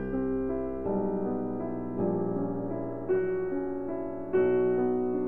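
Background piano music: slow, gentle chords, with new notes struck about once a second.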